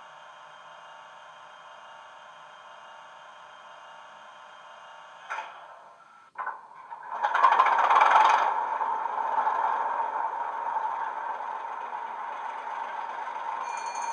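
Coastal DCC Class 37/0 sound file played through two small megabass speakers in a Bachmann Class 37 model: the diesel engine start-up sequence. A faint steady hum runs for about five seconds. A short burst and a click follow, then the engine fires up, loudest about a second later, and settles into a steady idle.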